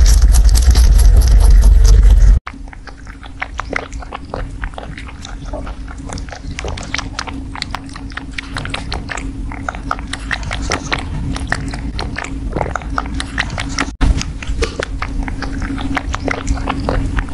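Rabbit chewing and nibbling food up close: a quick run of small crisp crunching clicks. A loud low rumble fills the first couple of seconds and cuts off abruptly.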